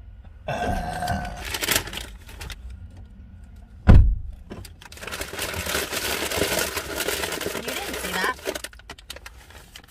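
A single heavy thump just before four seconds in, set among muffled, indistinct talk and noise inside a car.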